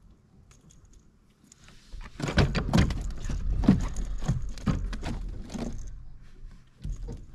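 A quick run of knocks and thumps, about three a second, starting about two seconds in and lasting about four seconds over a low rumble: handling noise from an angler working in a plastic kayak.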